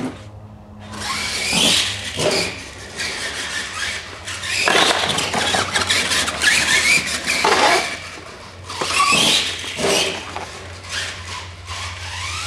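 R/C monster truck driving in bursts, its motors and gears whining up and down as the throttle is worked, in repeated loud surges. A steady low hum runs underneath.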